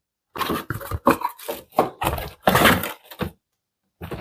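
Pages of a paper instruction manual being flipped, a run of quick rustling bursts that stops shortly before the end.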